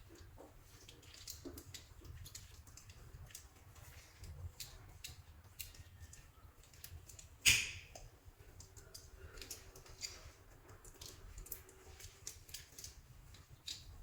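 Soft clay being handled and worked by hand: a run of faint irregular clicks and small sticky taps, with one sharper, louder click about halfway through.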